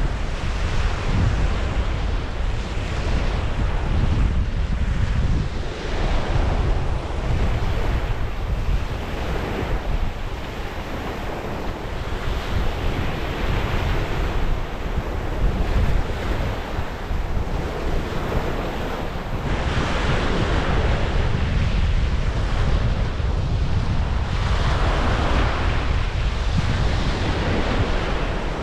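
Wind buffeting the microphone with a heavy low rumble, over waves washing onto the shore that swell up every few seconds.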